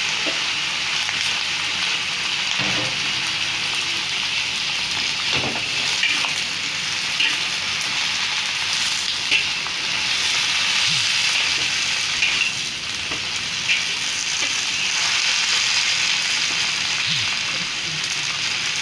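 Tofu and vegetables sizzling steadily in hot oil in a wok, with a few short clicks as the metal spatula knocks and scrapes against the pan.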